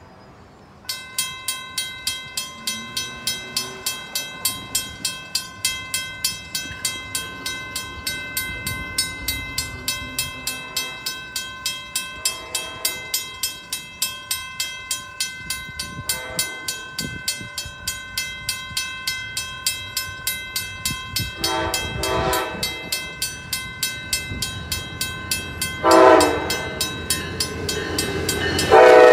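Railroad crossing bell starts up about a second in and rings steadily at about two to three strokes a second. Meanwhile an approaching Amtrak Pacific Surfliner sounds its horn, first as faint distant blasts, then louder, with a loud long blast about three seconds before the end and another at the very end.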